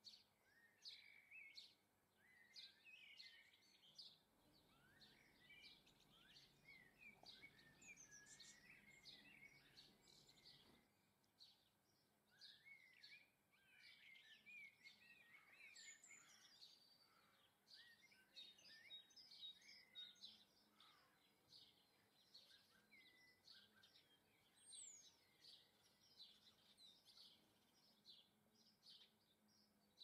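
Small garden songbirds chirping and twittering, a busy run of short calls and quick rising and falling notes.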